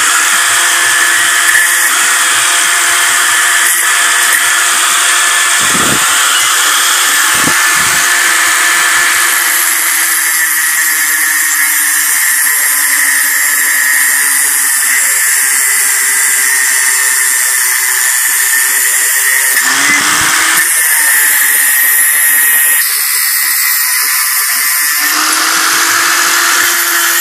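Electric angle grinder running with its disc grinding flat metal bar stock: a steady, loud hiss of abrasive on metal over the motor's whine. About twenty seconds in the motor briefly drops and spins back up, and again a few seconds before the end.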